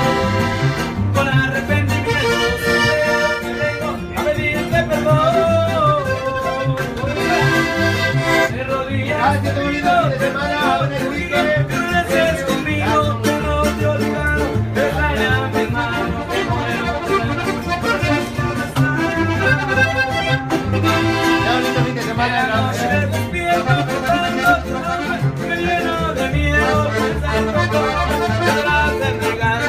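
Live piano accordion and acoustic guitar playing an upbeat Latin American song over a steady bass rhythm, with a man singing along.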